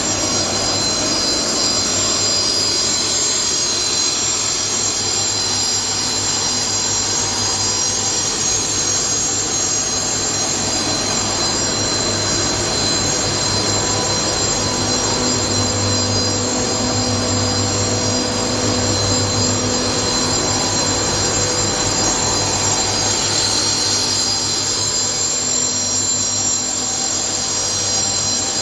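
Superfine pulverizer grinding mill and its dust-collector fan running steadily while grinding feed: a constant loud mechanical din with several steady high-pitched whining tones and a low hum.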